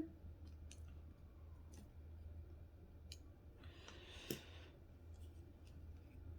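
Faint small clicks of a folding knife's metal parts being handled and fitted together during reassembly, about one a second, with a brief scrape about four seconds in.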